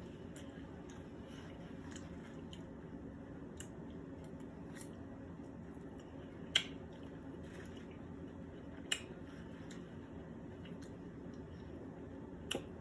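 Quiet, close-miked chewing and mouth sounds of someone eating, over a steady low hum. There are three short sharp clicks: about halfway through, a couple of seconds later, and near the end.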